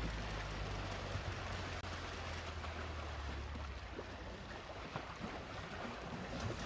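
Low steady engine hum, which drops away a little under four seconds in, over a constant hiss with a few faint small clicks.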